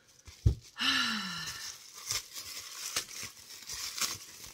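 A single thump about half a second in and a brief falling hum of voice, then a clear plastic bag crinkling and rustling in the hands as a spiral hair tie is unwrapped.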